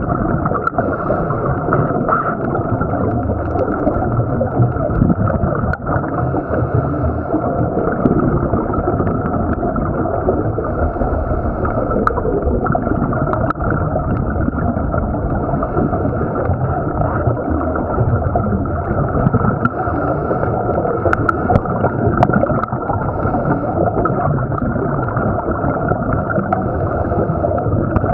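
Underwater noise picked up through a camera's waterproof housing: a steady, muffled wash and gurgling of water with a few faint clicks.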